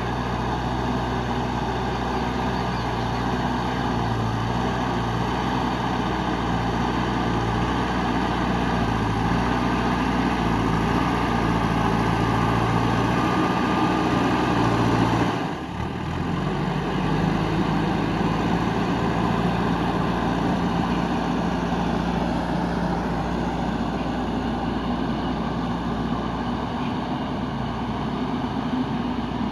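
JCB 3DX backhoe loader's diesel engine running steadily while it works the ground, with a brief drop in sound about halfway through, after which the engine note shifts slightly.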